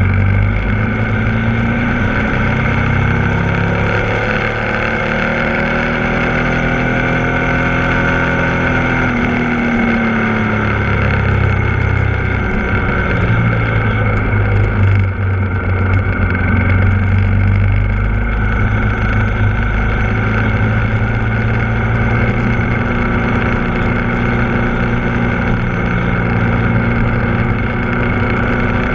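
Ducati Multistrada 1260 S's V-twin engine heard onboard while riding, its note rising and falling with the throttle through the bends, dipping sharply about ten seconds in and then picking up again, over a steady rush of wind.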